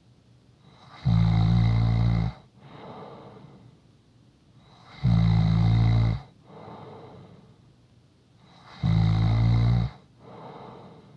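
A person snoring in a steady rhythm: three loud, low-pitched snores about four seconds apart, each lasting about a second, with softer breaths between them.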